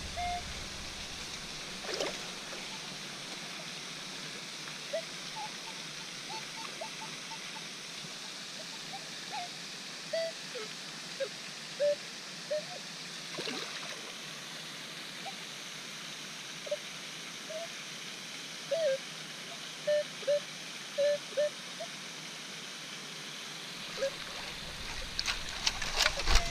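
Steady rush of flowing water in a natural pool, with short high beeps scattered through it.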